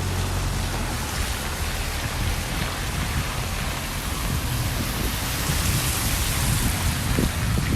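Steady rain hissing down on a city street and pattering on an umbrella, with a low rumble that fades about a second in.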